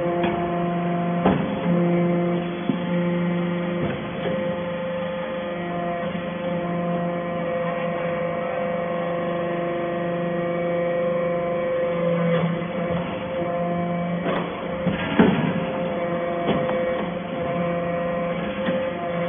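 Hydraulic iron-chip briquetting press running: a steady hum from its hydraulic pump and motor, with a few sharp knocks as briquettes are pressed and pushed out. The loudest knock comes about fifteen seconds in.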